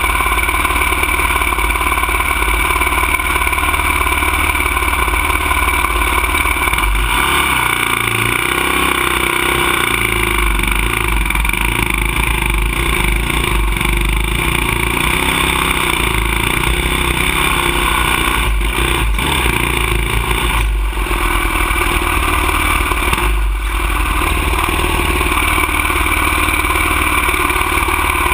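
Dirt bike engine running at a steady idle. Its revs rise and fall in the middle, with a few brief drops in the sound about two-thirds of the way through.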